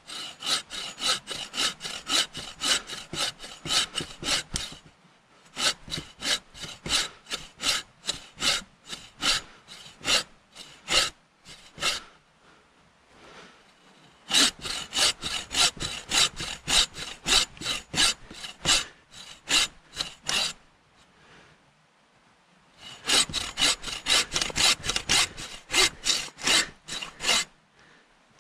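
Hand saw cutting through wood in four bouts of quick back-and-forth strokes, about two to three strokes a second, with short pauses between the bouts.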